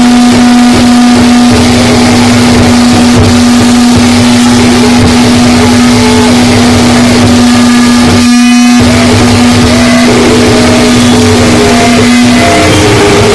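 Harsh noise music: a loud, dense wall of distorted noise over a steady low drone and a pulsing low rumble. About two-thirds of the way through the noise briefly drops out under a rapid stutter, and near the end the drone breaks up and shifts in pitch.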